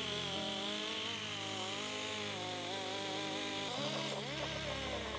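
Rotary tool spinning a wire brush wheel against a cast copper trivet: the motor whine wavers up and down in pitch as the brush is pressed and moved over the metal, over a steady scratchy hiss of wire bristles on copper.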